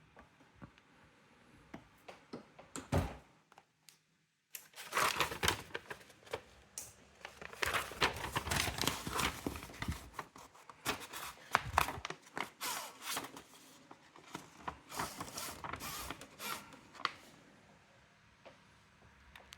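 Plastic and metal parts of a Brother AX-425 electronic typewriter being handled and taken apart: a scatter of clicks, knocks and rattling clatter, busiest from a few seconds in until near the end.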